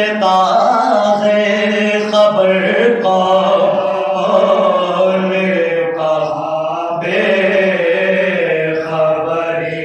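Group of men chanting a Shia mourning elegy (soz, salam or marsiya) in Urdu, with no instruments: a lead voice on a microphone with the others singing along in long, drawn-out phrases.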